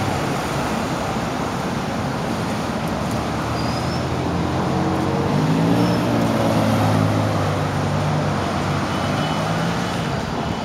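City bus engine revving up as a bus pulls off, its note rising about five seconds in and then holding, over a steady rumble of idling buses and traffic.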